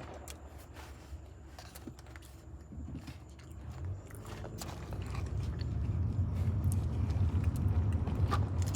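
Close-up eating sounds: chewing and crunching with scattered clicks, over a low rumble that grows louder about halfway through.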